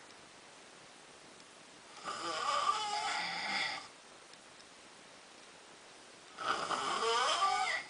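Two drawn-out snores a few seconds apart, each lasting about one and a half to two seconds, with a wavering pitch.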